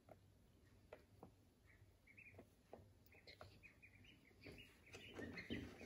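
Duckling peeping: a run of short, high peeps that starts about two seconds in and grows busier and louder near the end, with a few faint clicks before it.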